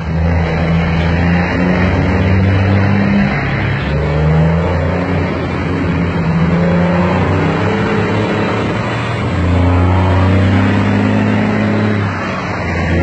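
Heavy diesel truck engine running under load as the truck pulls its trailers, its pitch rising as it accelerates and settling back in stretches.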